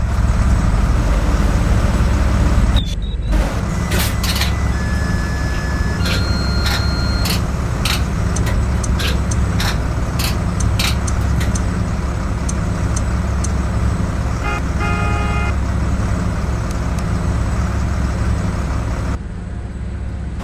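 A school bus engine running with a steady low rumble and scattered clicks and knocks. A short horn toot comes about fifteen seconds in.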